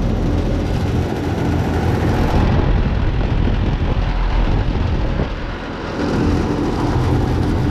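A 2010 7.5-ton York commercial air conditioner running, really loud: a steady rush of air from the condenser fan over a low, even hum from the compressor.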